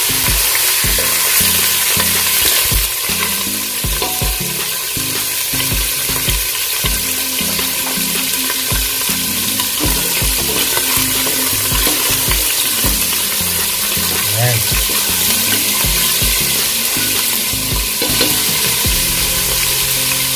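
Pork pieces with onion and whole peppercorns sizzling in hot oil in a stainless steel pot, searing to brown. A spatula stirs through them, knocking and scraping against the pot at irregular moments.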